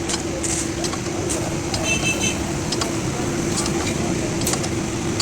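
Ashok Leyland truck running with a steady hum. A brief high beep sounds about two seconds in, and faint clicks are scattered throughout.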